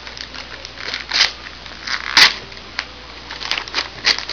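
Gift wrapping paper crinkling and tearing in short bursts as a toddler unwraps a present, the loudest rip about two seconds in.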